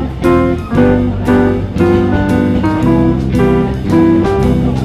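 Background music led by plucked and strummed acoustic guitar, with a bass line and a steady rhythm.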